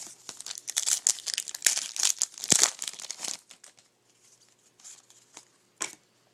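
Wrapper of a trading-card pack crinkling as it is torn open, a dense run of crackling for about three seconds, followed by a few light clicks and rustles.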